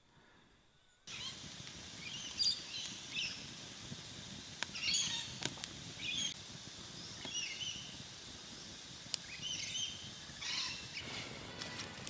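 Birds calling over a faint steady outdoor hiss: repeated short chirps that rise and fall, starting after about a second of silence, with a few clicks and rustles near the end.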